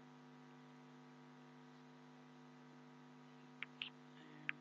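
Near silence with a steady electrical mains hum on the recording, broken near the end by three short clicks of a computer mouse.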